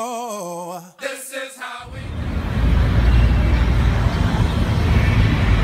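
A voice singing a "sha-la-la" line is cut off about a second in. After a brief snatch of voice, a loud, uneven rumbling rush of wind buffeting the microphone takes over.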